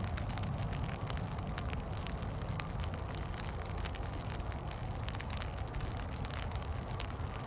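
Wind buffeting the microphone in a steady low rumble, with scattered ticks of light raindrops.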